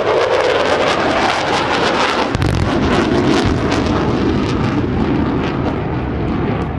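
F-14D Tomcat's twin GE F110-400 engines running in afterburner on a low pass, with a crackling roar. About two and a half seconds in, a deep rumble sets in from a pyrotechnic wall-of-fire detonation and carries on underneath.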